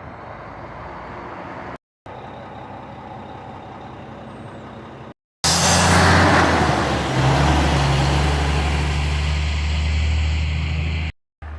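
Outdoor clips cut together: steady background noise at first, then about halfway through a large motor vehicle's engine runs loud and steady close by, with a burst of hiss as that clip begins.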